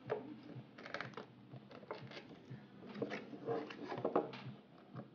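A thin clear plastic sleeve crinkling and rustling as it is pulled off a cardboard product box, in irregular bursts that are loudest about a second in and again around three to four seconds in.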